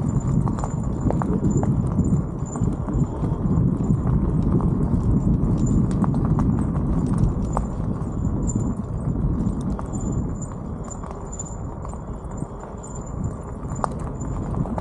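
Bicycle rolling along a gravel road, its tyres crunching over the stones with a steady low rumble and scattered clicks. Over it a squeaky brake chirps again and again in a thin, high, cricket-like squeak.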